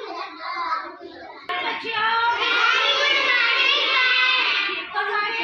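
Young child singing in a high voice, loud and continuous from about a second and a half in, after a moment of child-like talk.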